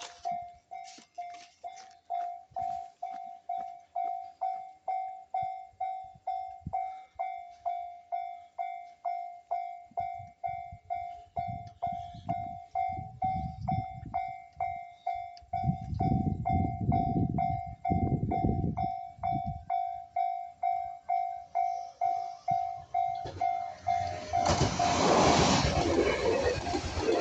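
Japanese level crossing's warning bell dinging steadily about twice a second, with a low rumble swelling in and out from about ten seconds in. Near the end a JR Central 383 series limited express electric train passes close with a loud rush of wheel and air noise that drowns the bell.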